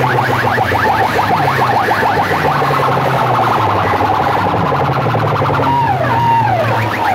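Electronic siren and alarm effects blasted loud through banks of horn loudspeakers: a fast run of repeated short chirps over a steady low drone. About six seconds in it turns to falling siren wails.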